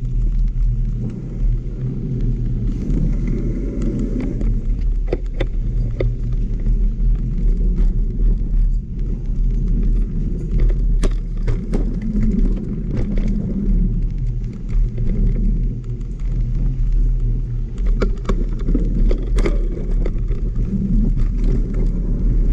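Mountain bike riding a dirt trail: a steady low rumble of wind and tyre noise on the microphone, broken by many sharp clicks and rattles from the bike over the ground.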